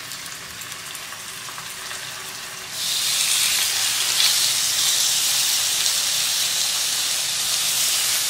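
Seasoned chicken leg steaks sizzling as they fry in a little oil in a frying pan; the sizzle turns much louder about three seconds in as more pieces are laid into the hot oil, then holds steady.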